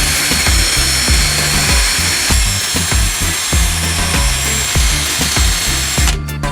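Background music with a steady bass beat over a power tool running with a steady whirr; the whirr cuts off suddenly near the end.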